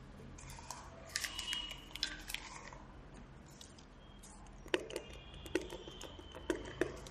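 Light clicks and rustling from hands handling a plastic spray bottle and a wad of cotton wool, with a scatter of soft rustles early on and a run of sharper clicks in the second half.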